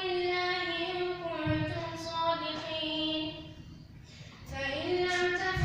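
A boy reciting the Quran aloud in a drawn-out melodic chant, holding long notes, with a pause for breath about three and a half seconds in before the recitation resumes.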